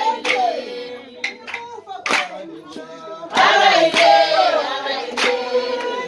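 Group of voices singing together with hand clapping. One sung phrase ends about half a second in and another runs from about three and a half to five and a half seconds, with sharp, irregular claps in between.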